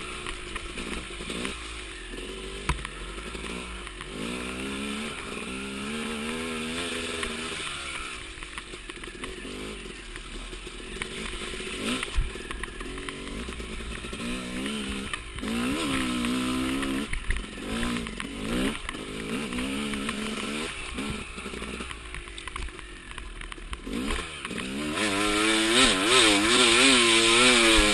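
Enduro dirt bike engine heard close up from the bike as it is ridden, the revs rising and falling again and again with the throttle. A few sharp knocks come in along the way, and near the end the engine is held at louder, higher revs.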